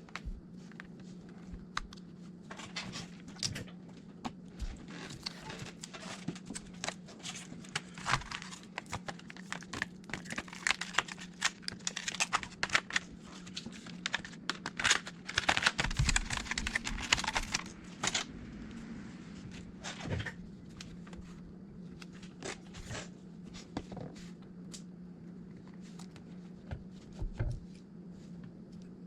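Plastic film and small parts being handled on a repair bench: dense crinkling and crackling with sharp clicks through the first half, then scattered clicks. A steady low hum runs underneath.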